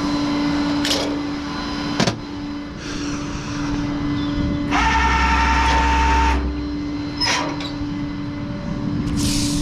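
Electric winch motor running for about a second and a half with a steady whine, between a few short clanks of the hook and cable. A steady hum continues underneath.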